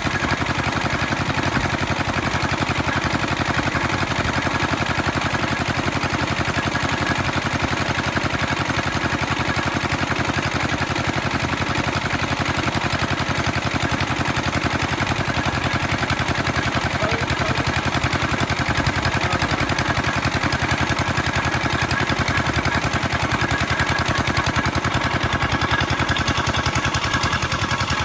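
Small stationary engine running steadily with a rapid, even popping beat, driving the belt-and-pulley cable winch of an oil-drilling rig.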